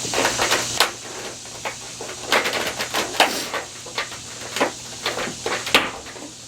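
Eureka SmartVac upright vacuum cleaner running over uncooked rice, the grains rattling and clicking irregularly as they are sucked up, over the steady hiss of the motor.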